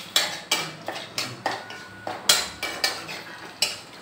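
A metal spatula is scraping and knocking against a metal kadhai while stirring whole spices in oil. There are about ten sharp clinks and scrapes, two or three a second.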